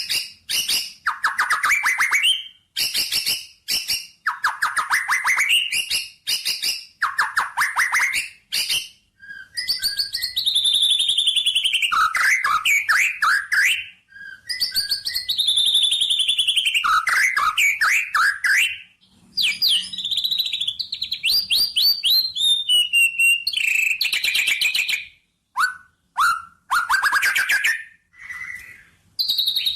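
A songbird singing loud, varied phrases with short pauses between them: fast rattling trills alternating with clear whistled notes that slide downward.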